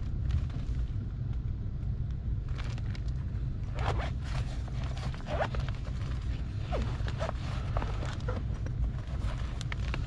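Steady low hum of a newly installed Trane heat pump air handler running, its blower back on under a cooling call. Scattered scrapes, clicks and rustling of tools being handled close by sit over it.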